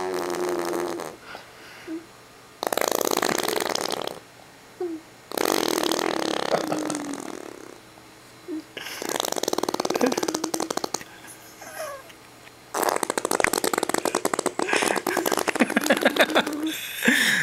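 Fart noises made with a baby's hands: five buzzing, sputtering blasts, each one to two seconds long and the last about four seconds, with short pauses between them.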